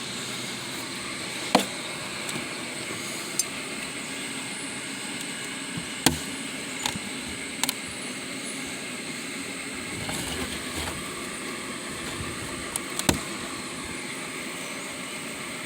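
Honeybees humming steadily in an open hive during an inspection, with a handful of sharp clicks and knocks scattered through as frames and tools are handled.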